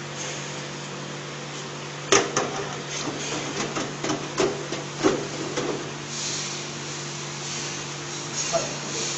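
Steady hum of a running electric fan and fryer. About two seconds in comes a run of metal knocks and clatters as the wire fry basket is handled in the stainless electric fryer. From about six seconds in, a soft hiss of churro dough sizzling in the hot oil.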